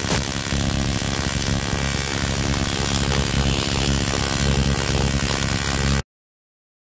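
TIG welding arc buzzing steadily with a hum and hiss; it cuts off suddenly near the end.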